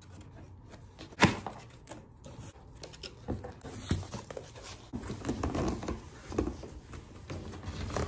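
Cardboard shipping box being opened by hand: cardboard and packing material rustling and tearing, with scattered knocks from handling. A sharp click comes about a second in, and the rustling grows busier in the second half.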